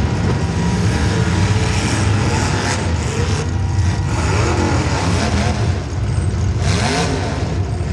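Demolition derby car's small-block Chevy V8 running hard, its pitch rising and falling a few times as it revs.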